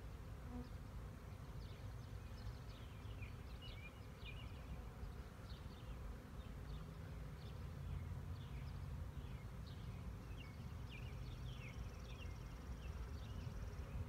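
Honey bee swarm buzzing, a steady low drone all around, with many short high chirps scattered over it.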